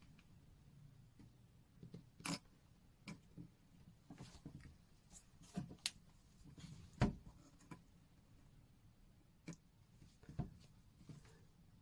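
Faint scattered clicks and taps of small tools and watch parts being handled while a watch case is opened and a new button-cell battery is fitted, with a sharper knock about seven seconds in.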